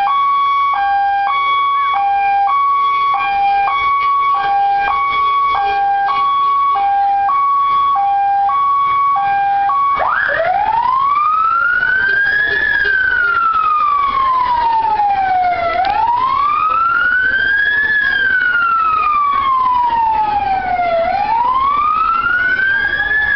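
Electronic vehicle siren sounding. For about ten seconds it is a two-tone hi-lo, alternating between two notes about once a second. It then switches to a wail that rises quickly and falls slowly, about every five seconds.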